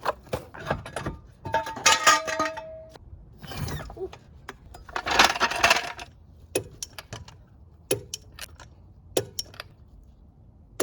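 Small metal objects clinking and clattering: a string of sharp clicks, a clink that rings briefly about two seconds in, and a short rustle around the middle.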